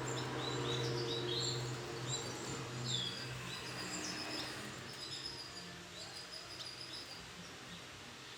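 Canaries chirping: many short, high call notes scattered throughout, over a low steady hum that fades out after about two seconds.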